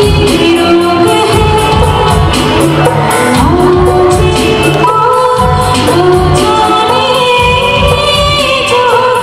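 A woman singing a song into a microphone, with a live band accompanying her on keyboard, guitar and hand drums to a steady beat.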